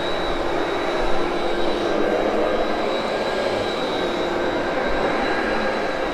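Vintage Royal upright vacuum cleaner running steadily on carpet: a constant motor whine over a rush of air.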